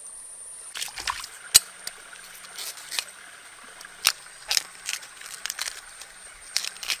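A knife cutting into a fresh bamboo shoot and its tough husk being peeled away: scattered sharp knocks and crackles, the loudest about a second and a half in. A steady high-pitched hiss runs underneath.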